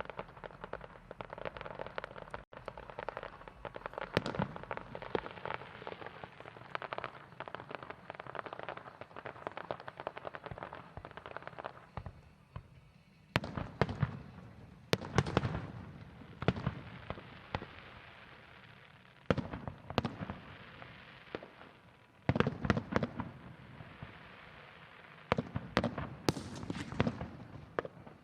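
Fireworks going off: a dense, continuous crackle for the first half, then a run of separate loud shell bursts, each a sharp bang with a low boom, in clusters from about halfway through.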